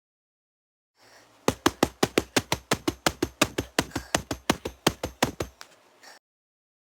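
Infected shrew creature sound effect: a rapid chittering train of about two dozen sharp clicks, around six a second, lasting about four seconds.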